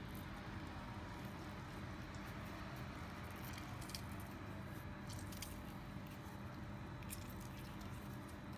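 Half a lemon being squeezed by hand, a faint squishing of the pulp and juice with a few soft clicks.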